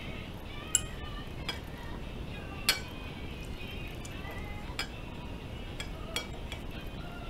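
Wooden chopsticks clinking against a ceramic rice bowl, about six times, the sharpest clinks just under a second and nearly three seconds in.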